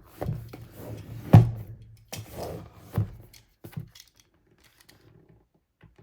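Handling of the Yeti X microphone's cardboard retail box as it is being opened: a string of knocks and rubbing, the loudest a single thump about one and a half seconds in.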